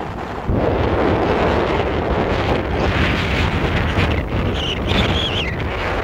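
Strong, gusty wind buffeting the microphone. It gets louder about half a second in, and a wavering high whistle comes through about two-thirds of the way along.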